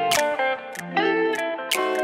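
Background music led by plucked guitar, with sharp percussion hits.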